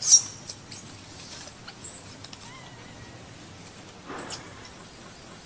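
Baby macaque giving several short, high-pitched shrieks and squeaks. The loudest comes right at the start and another about four seconds in.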